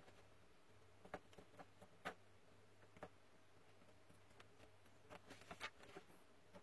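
Faint, scattered small clicks and taps of hand tools on a small electronic part, a few isolated ones and then a quick cluster about five seconds in, over a faint low hum.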